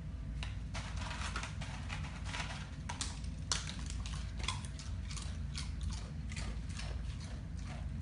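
Siberian husky crunching nachos off the floor: a fast, irregular run of crisp crunches and clicks.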